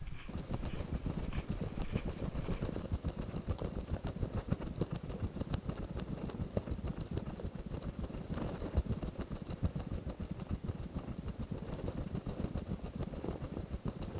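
The body-worn camera's own sound of walking: footsteps and jacket rustling over a constant low rumble, with many small knocks.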